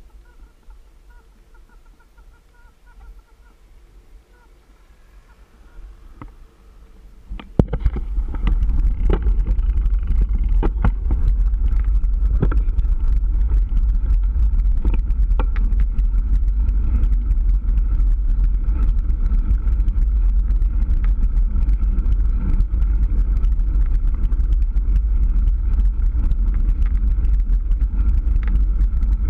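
Wind rushing over the camera microphone on a fast mountain-bike descent, starting abruptly about seven seconds in and staying loud and steady, with sharp clicks and knocks from the bike rattling over rough asphalt. Before it, a quieter stretch with faint chirping.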